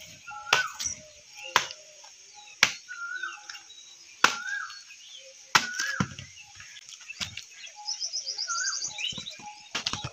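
A curved chopper (katari) strikes into the fibrous stalk of a bunch of palmyra palm fruits, cutting the fruits loose: about seven sharp chops at uneven intervals, roughly a second apart. Between the chops a bird repeats a short rising-and-falling whistle, and a high trill comes near the end.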